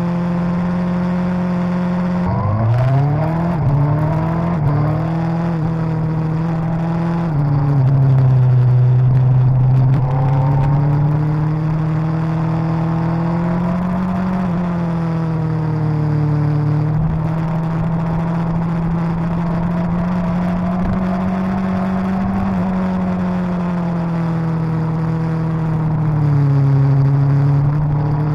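Suzuki GSX-R1000's inline-four engine under way on a winding road, running at steady mid revs. About two seconds in, the revs climb in several quick rising steps. Further on, the pitch dips and rises again as the bike slows for corners and pulls out of them.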